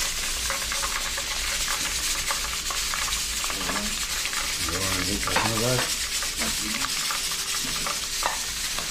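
Snook pieces deep-frying in a large pot of hot oil: a steady, dense crackling sizzle.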